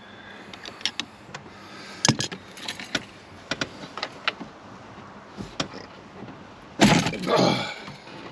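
Metal parts and tools clicking and tapping against a car's steering column as it is taken apart by hand, with a louder clatter about seven seconds in.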